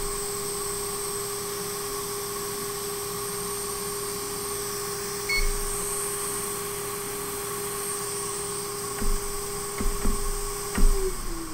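Hot air rework station's blower running with a steady whine while the chip is heated. A short beep sounds about five seconds in, a few light clicks follow near the end, and the whine drops slightly in pitch just before the end.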